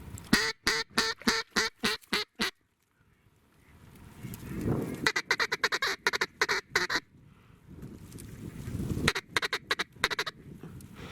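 Mallard-style quacking in three quick runs of short, evenly spaced quacks.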